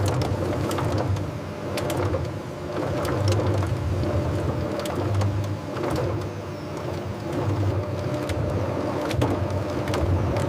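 Heavy machinery running with a steady low drone that swells and fades irregularly, with sharp metallic clicks and clanks scattered throughout.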